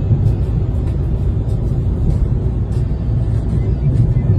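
Steady low rumble of engine and tyre noise heard inside the cabin of a car driving along a road at steady speed.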